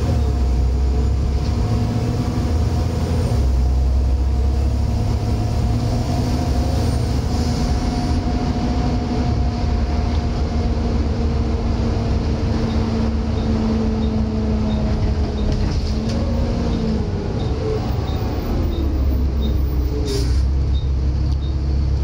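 Volvo B7TL double-decker bus running along, heard from the upper deck: the rumble of its six-cylinder Volvo D7C diesel with the whining 'hoover' of its cooling fan and its ZF automatic gearbox. The steady whine shifts in pitch near the end.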